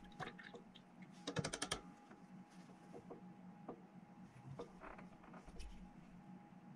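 Faint clicks and taps from handling miniature-painting tools: a plastic painting handle, a brush and palette. There is a quick run of sharp clicks about a second and a half in, and a faint steady hum underneath.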